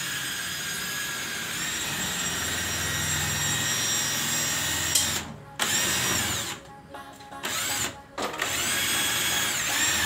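Power drill running in long runs: an unbroken whine for about five seconds, then stopping and restarting three times, each restart a rising whine as it spins up.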